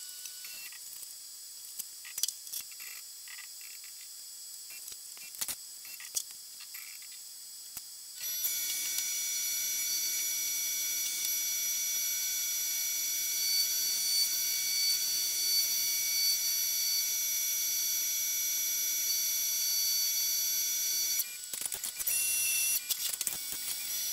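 Tormach 1100MX CNC mill spindle running with a steady high-pitched whine, starting about eight seconds in and cutting off abruptly after about thirteen seconds. A few faint clicks come before and after it.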